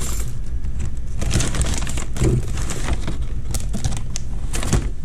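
Rustling and light clicking and clattering of small objects being handled and moved about while someone rummages for something, over a steady low hum.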